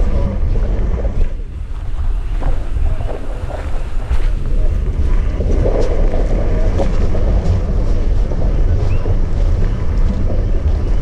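Deep, steady rumbling roar of an erupting Kīlauea lava fissure, with wind buffeting the microphone and scattered brief crackles. The roar eases slightly a second or two in, then returns.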